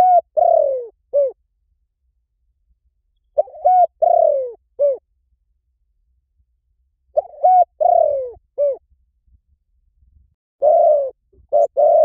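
Spotted dove cooing, played as a decoy call: a short phrase of three or four low coos, repeated four times about every three and a half to four seconds.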